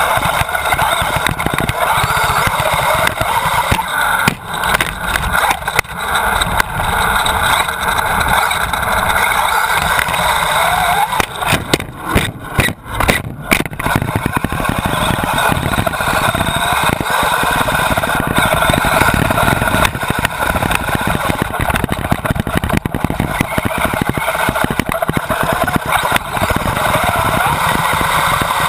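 Radio-controlled car's motor running steadily, its pitch rising and falling with the throttle, with a few brief drops in sound about twelve to fourteen seconds in.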